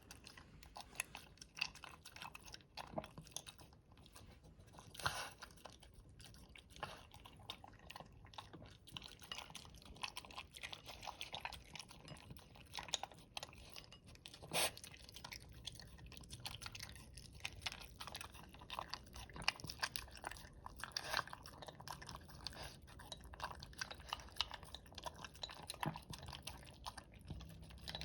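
Dog chewing and crunching its food slowly, in scattered small bites with irregular clicks. The food has a wormer medicine mixed in, which makes him eat slowly.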